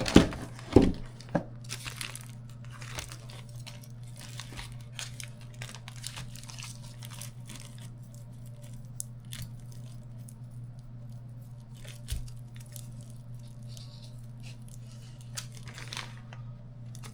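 Plastic packaging of frozen burger patties crinkling and tearing as one frozen-solid patty is worked loose by hand. There are a few sharp knocks in the first second or so, and a steady low hum underneath.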